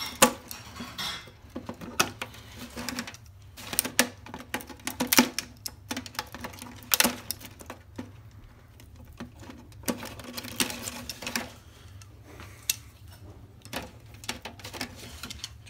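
Hand wire cutters snipping and stripping wires: a run of sharp, irregular clicks and snaps.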